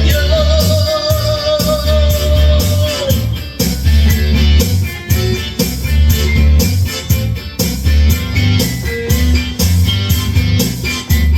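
Blues song with guitar over a steady bass-and-drum beat, opening with a long held note that lasts about three seconds.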